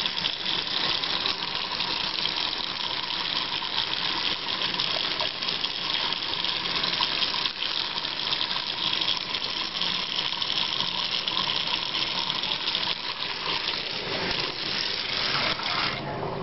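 Water running steadily, an even hiss that cuts off suddenly near the end.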